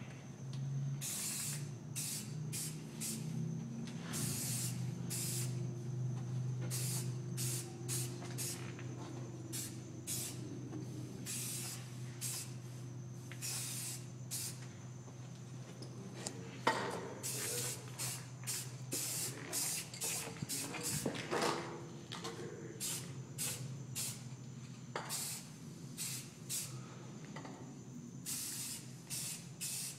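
Aerosol spray-paint can spraying in many short bursts of hiss, some a fraction of a second and some about a second long, over a steady low hum. A single sharp knock comes just past halfway.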